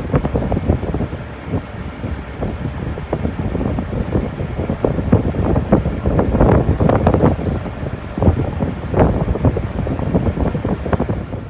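Wind buffeting the microphone on the open deck of a moving river ferry, in loud, uneven gusts that swell around the middle, over the low running noise of the ferry.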